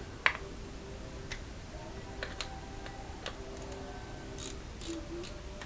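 Scattered light clicks and taps at irregular intervals, as small parts and tools are handled on a workbench, over a faint steady hum.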